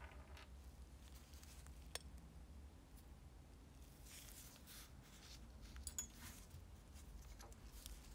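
Quiet handling of small metal lighter parts in gloved fingers: soft rustles with a few light clicks, one about two seconds in and a sharper one about six seconds in.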